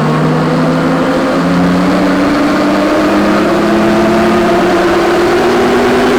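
Jeep Wrangler JLU Rubicon's 3.6-litre Pentastar V6 pulling under load on a Mustang chassis dyno, turning 40-inch tires. The engine note climbs slowly and steadily in pitch as the revs build.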